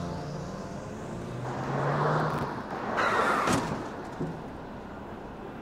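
Car engine and tyre noise on the road, swelling twice about a second apart and then fading.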